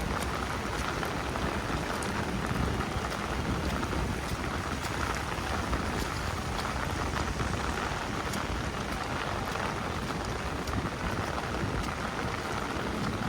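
Rain falling steadily on a city street, an even hiss with scattered sharp ticks of drops close by.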